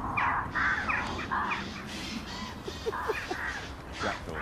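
Crows cawing: three harsh caws in quick succession, then fainter calls, over a low steady rumble.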